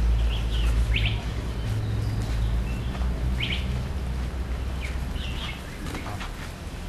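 Birds chirping in short, scattered calls over a low, steady rumble that eases off after about five seconds.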